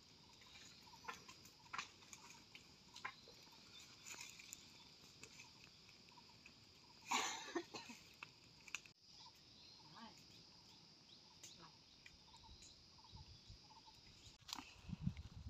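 Faint steady high-pitched insect drone in the forest, with scattered sharp crackles and pops from an open wood and brush fire, and one louder noisy burst about seven seconds in.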